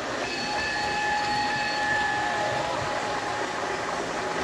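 Model train running past on a layout: a steady high whine with overtones over a background rumble, sliding down in pitch about two and a half seconds in.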